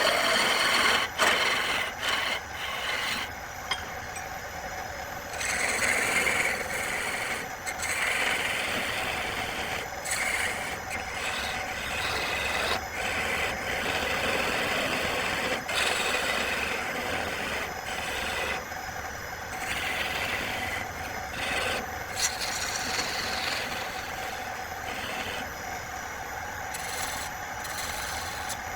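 A wood lathe running with a steady hum while a tool or abrasive works the spinning wood, a rough hiss that swells and fades every couple of seconds.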